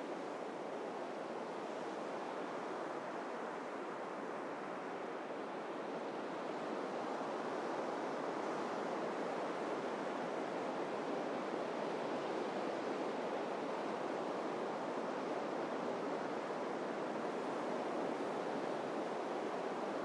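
Ocean surf breaking and washing onto a beach in a steady rush, swelling a little louder about seven seconds in.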